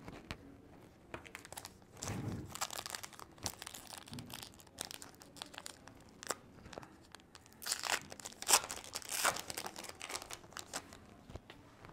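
Trading-card pack wrapper crinkling and tearing as a pack of baseball cards is opened by hand. Irregular crackles, loudest in the second half.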